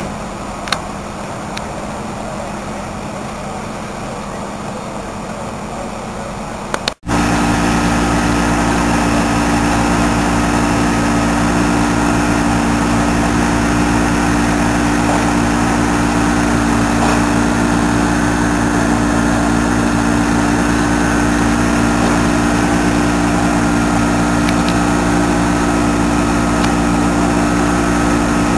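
A large engine running steadily at constant speed, loud and close: a fire engine driving its pump to feed the hose lines. It starts abruptly after a cut about seven seconds in; before that there is quieter street noise.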